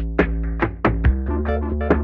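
Background music with a steady electronic beat over a held bass line.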